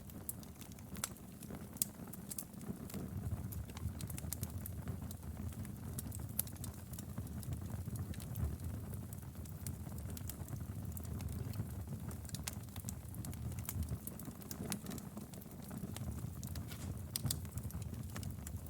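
Wood fire crackling: frequent sharp snaps and pops scattered over a steady low rumble of burning firewood.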